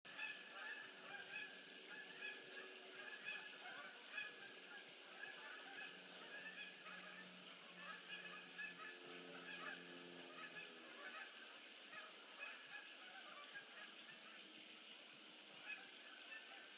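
Faint, distant flock of geese honking, a dense ongoing chatter of overlapping calls. A low steady drone joins about six seconds in and fades out near eleven seconds.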